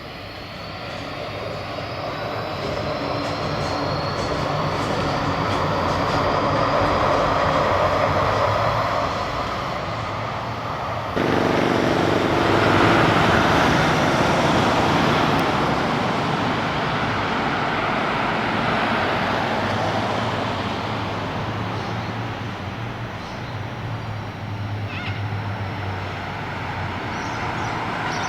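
Gold Coast light rail tram crossing a viaduct, its electric traction motors whining upward in pitch over the steady rumble of wheels on rail, growing louder over the first several seconds. The sound changes abruptly about eleven seconds in, with steady lower hum tones, then slowly fades as the tram passes. Birds chirp near the end.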